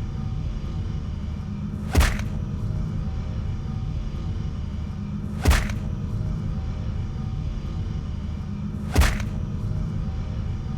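Film sound effect: a steady low rumbling drone with a sharp crack repeating three times, about every three and a half seconds.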